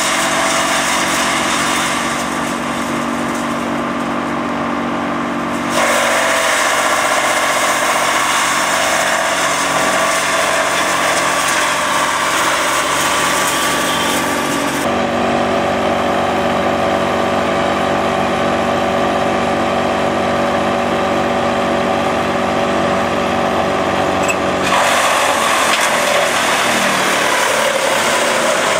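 Engine-driven wood chipper running loudly and steadily, a machine drone with a dense rushing noise over it. The sound changes abruptly about six, fifteen and twenty-five seconds in.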